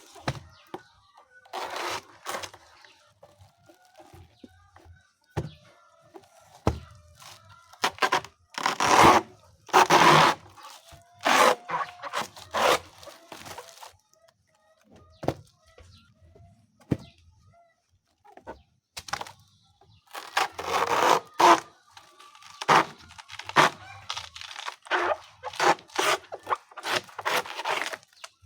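A blade chopping soft banana stem into pieces: many sharp, irregular cutting strikes in clusters, with short pauses between. Chickens call faintly in the background.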